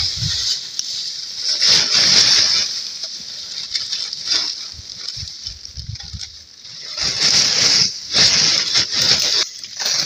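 Plastic tarp crinkling and rustling with snow sliding and scraping off it as it is pulled and shaken, in several bursts, the strongest near the start and in the last three seconds.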